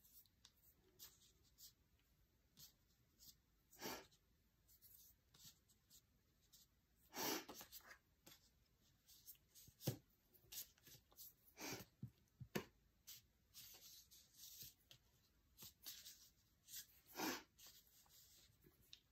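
Faint scratching and rubbing of fingers pressing and smoothing clay into a flexible flower mould, a run of short, soft scrapes with a few louder ones scattered through.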